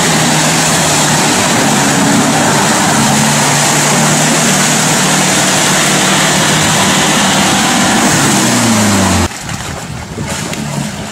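4x4 SUV engine working hard at steady high revs while pushing through deep mud and water, with a loud rushing noise over it. The revs drop near the end, and the sound then cuts to a quieter engine running.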